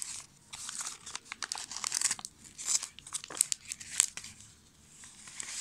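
A card pack's wrapper crinkling and tearing as it is handled and cut open with scissors, in irregular rustles and sharp crackles that die down near the end.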